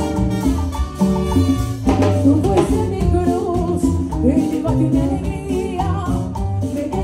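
A live Latin dance band playing, with upright bass and percussion. A woman's lead vocal comes in about two seconds in.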